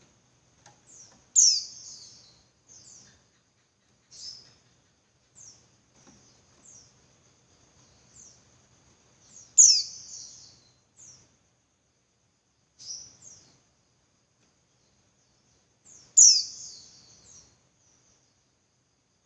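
Female white-eye (pleci) calling: short high chirps every second or so, with three louder sharp falling calls about seven seconds apart. This is the female's call that draws male white-eyes.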